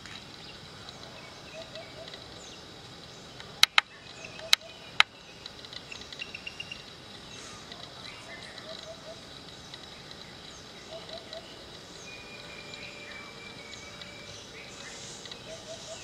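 Outdoor ambience with birds chirping now and then over a faint steady high tone. Four sharp, loud clicks come a few seconds in, two close together and then two more about half a second apart.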